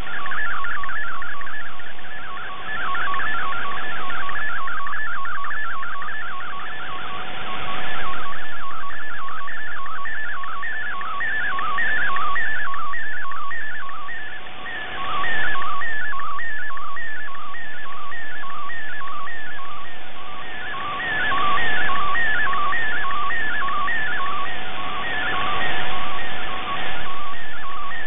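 Shortwave radio MFSK64 digital image transmission received in AM/DSB: a fast, rhythmic warble of high data tones over static hiss, with a steady lower tone beneath. The signal fades down and swells back up several times.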